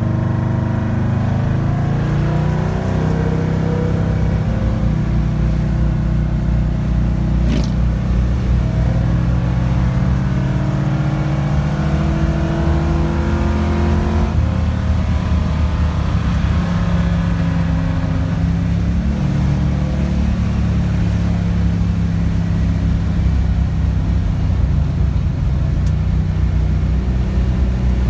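1969 Chevrolet Camaro's engine running under way down the highway, heard from inside the car. Its note rises over the first few seconds and changes pitch about halfway through, and there is a single short click about seven seconds in.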